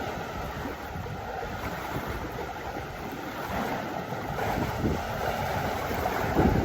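Wind buffeting the microphone in uneven gusts over a steady rush of noise.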